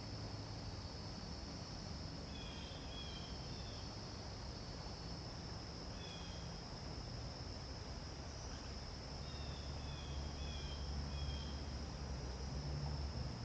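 Steady, high-pitched insect trilling, with a few groups of short chirps over it. A low rumble underneath grows louder in the last few seconds.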